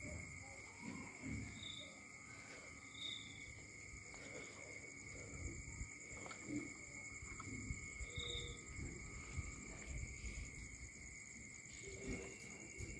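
Night insects, crickets, trilling steadily at two high pitches, with a short, higher chirp every few seconds. Soft, irregular low rustling close to the microphone runs beneath them.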